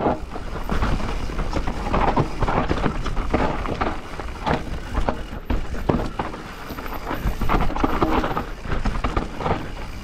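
Transition Spire 29er enduro mountain bike descending a rough trail at speed: tyres running over loose dry dirt and the bike clattering over bumps in a constant stream of short knocks and rattles, over a steady rumble of wind on the camera microphone.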